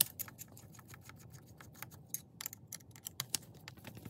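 Hand work on a radio-control truck's chassis: a hex driver turning screws in the plastic motor-mount area while wires and plastic parts are handled. It makes a string of small, irregular clicks and ticks, several a second.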